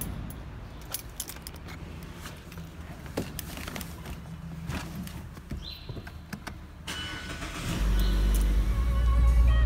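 Someone getting into and settling in a car: scattered clicks, key jingles and handling noises over a low rumble. About eight seconds in, music with a heavy bass beat starts up.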